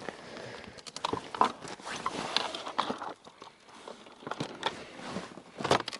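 Rustling and scattered sharp clicks of close handling, as of hands working with fishing tackle and clothing. The loudest clicks come about a second and a half in and near the end.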